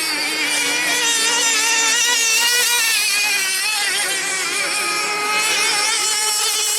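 Several small model racing-boat outboard engines running at high revs together, their high whines wavering up and down in pitch as the boats run around the course.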